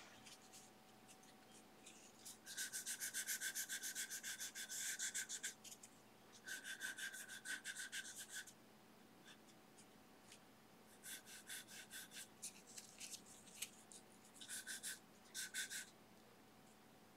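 A paper towel rubbed in fast back-and-forth strokes on a smooth, gesso-primed aluminum composite panel, wiping oil paint off to lighten the pear shape. The rubbing comes in about five short runs with quiet gaps between them.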